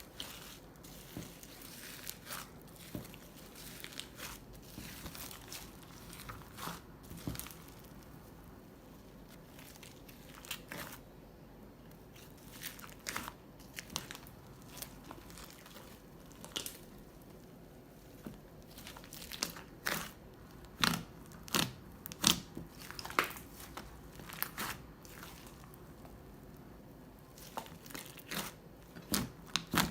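Slime being squeezed and worked by hand, giving irregular crinkling, crackling snaps that are sparse at first and come thickest a little past two-thirds of the way through.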